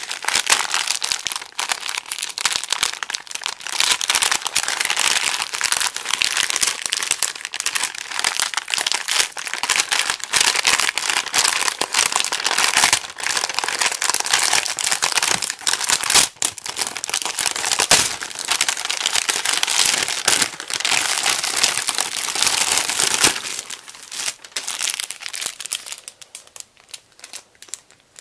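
Plastic mailing bag crinkling and rustling as hands pull it open and rummage inside, thinning out over the last few seconds.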